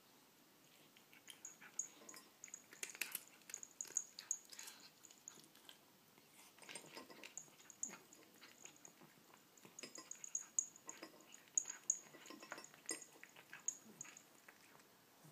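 Cat crunching dry kibble: quick, irregular crunches of bites and chewing, coming in runs with short pauses between.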